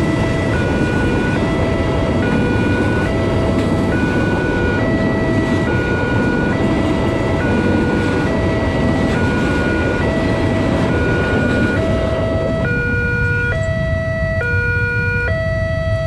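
Indonesian railway level-crossing warning alarm sounding, two electronic tones alternating evenly about twice a second, under a loud rushing noise that dies down about three-quarters of the way through.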